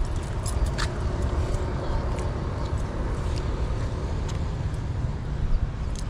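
Steady low rumble of outdoor background noise, with a few light clicks scattered through it.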